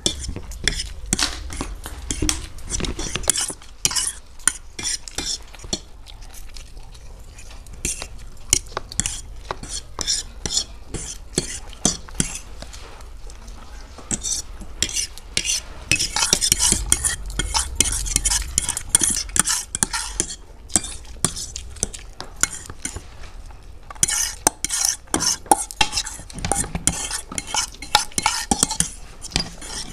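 Forks clicking and scraping on plates, with noodles being slurped and chewed close to the microphone.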